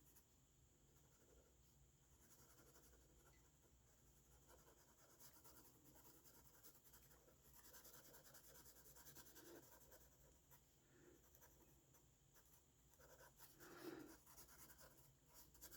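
Faint scratching of a colouring tool scribbling on sketchbook paper, in short stretches that come and go.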